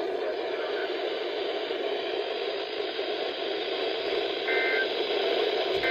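Radio receiver giving off a steady static hiss, with a faint short beep a little past four seconds in.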